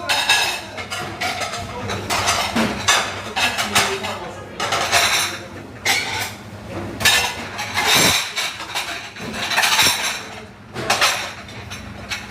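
Dishes and cutlery clattering and clinking as they are handled and stacked during dishwashing, with repeated short bursts of hiss.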